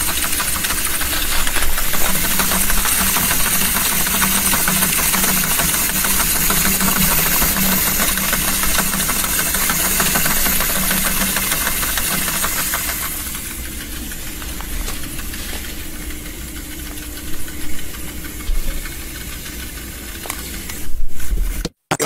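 Tape recorder rewinding at high speed: a steady motor hum under loud tape hiss with rapid fine ticking. About two-thirds of the way through it drops in level and thins out, then it cuts off with a few clicks near the end.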